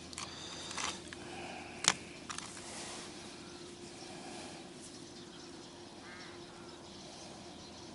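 Fishing tackle being handled: a few faint clicks and rattles, one sharp click about two seconds in. A short bird call about six seconds in.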